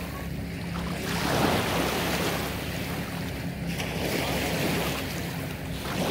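Small waves washing and lapping in shallow lake water, swelling and fading every second or two, with wind on the microphone.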